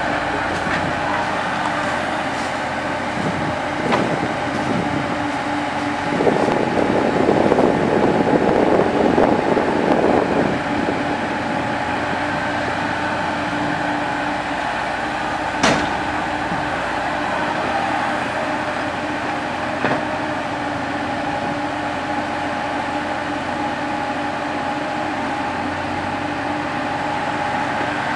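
Komatsu PC70 hydraulic excavator's diesel engine running steadily, with a louder rushing stretch of several seconds about a quarter of the way in and a single sharp knock a little past halfway.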